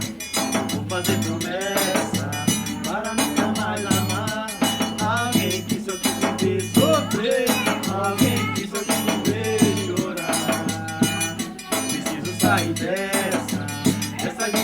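Band music with a steady, pulsing bass beat and a melody line that moves up and down.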